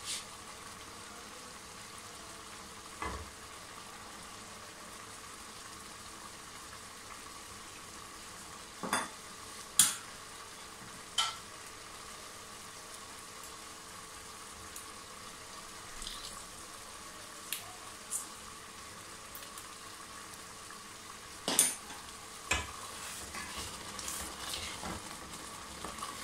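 Thick mixed fruit jam simmering in an aluminium pot near its setting point: a steady low bubbling with scattered sharp pops, the loudest about ten seconds in and again a little past twenty seconds. Near the end a spoon stirs it, scraping and tapping the pot.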